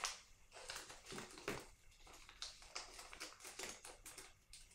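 Plastic kit parts bags being handled and pulled apart: a string of faint, irregular crinkles and clicks.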